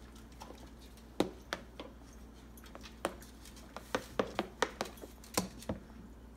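About ten light, irregular taps and clicks of small hands, a spoon and bits of food on a plastic high chair tray and plate, several coming in quick succession in the second half.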